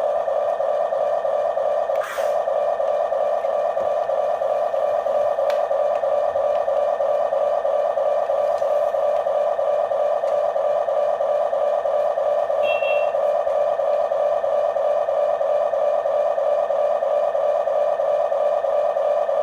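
Steady electric whine of a toy RC excavator's small motors and plastic gearbox running without a break, with a single click about two seconds in.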